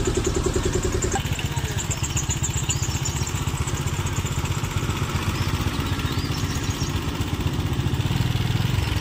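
Small goods truck's engine running at low speed close by, a steady low pulsing. A higher steady hum stops about a second in.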